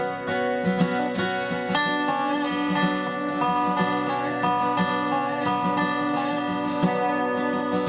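Instrumental dobro music: a resonator guitar played with a slide over acoustic guitar, some notes gliding in pitch.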